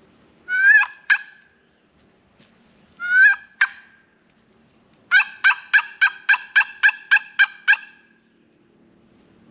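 Turkey call blown by a hunter, imitating hen turkey yelps to draw a gobble from a tom. Two short two-note calls, then a run of about ten quick, evenly spaced yelps, about four a second.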